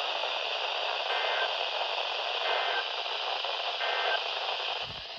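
Weather radio receiver hissing with heavy static. Three short, faint data bursts about a second and a half apart sit under the hiss, the pattern of EAS end-of-message tones.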